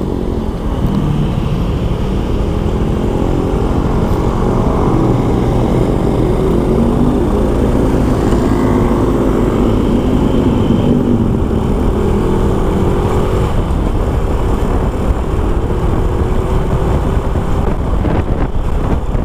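Honda Supra X 125's single-cylinder four-stroke engine running under way, its pitch rising and falling with the throttle.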